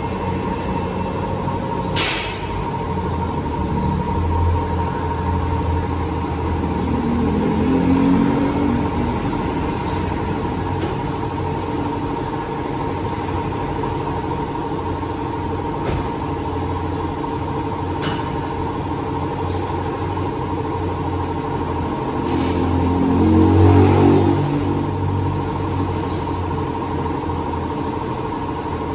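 Steady machine hum with a held tone in a workshop, with a few light clicks. Motor vehicles pass outside twice, each swelling and fading, about 8 seconds in and again near 24 seconds.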